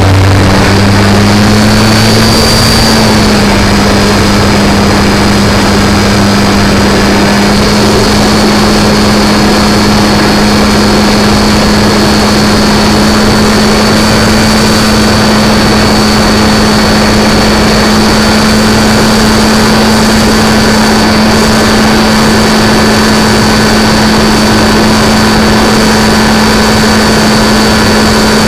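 Radio-controlled model airplane's motor and propeller running loud and close, as heard from a camera mounted on the plane, with a dense rushing noise over it. The pitch climbs in the first couple of seconds, then holds steady.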